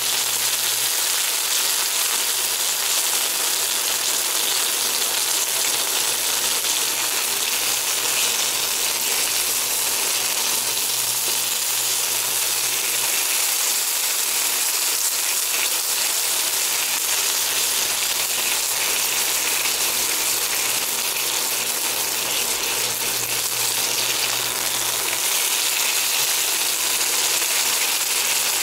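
Pork chop sizzling steadily in hot oil in a nonstick frying pan as its edge is seared, held upright with tongs.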